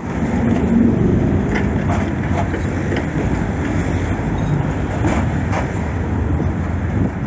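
Articulated city tram running past on street track: a steady running noise with a low hum and a few faint clicks.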